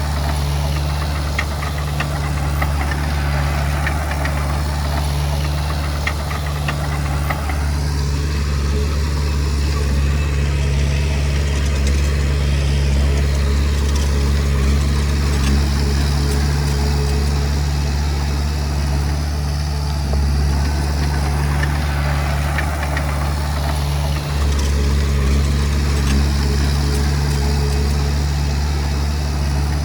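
Komatsu D20P bulldozer's diesel engine running at a steady speed with a deep, even hum, and light clanks now and then.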